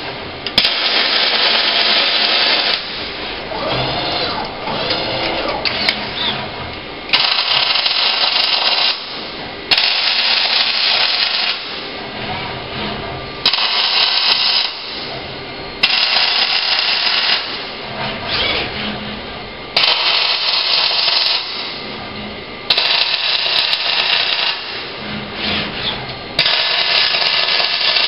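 Robotic MIG welder arc crackling and buzzing in a series of short welds, about nine in all, each lasting one to two seconds with quieter gaps between as the torch moves from joint to joint.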